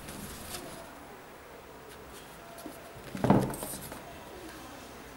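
Handling noise as an Air Jordan 2 sneaker and its insoles are moved about: light rustles and scrapes, then a dull thump a little over three seconds in as the shoe is set down on its cardboard shoebox.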